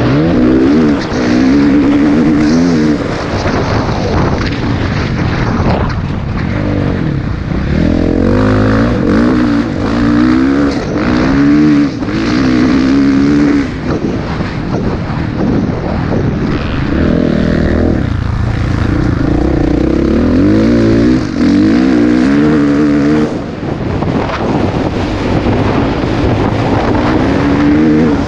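Dirt bike engine heard from on board, revving up and climbing in pitch through the gears again and again, dropping away briefly several times as the throttle is rolled off. Wind buffets the microphone throughout.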